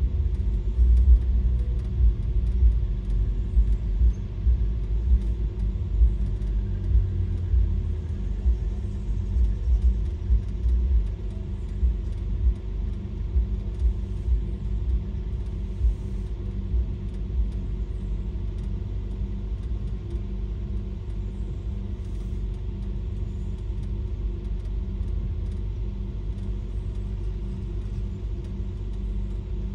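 Car engine and road rumble heard from inside the cabin while driving, uneven and louder for the first dozen seconds, then steadier and a little quieter.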